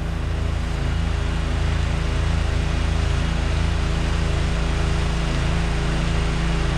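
Pressure washer engine running steadily while spraying, a low even hum under a steady hiss of spray from the wand's tall-reach tip.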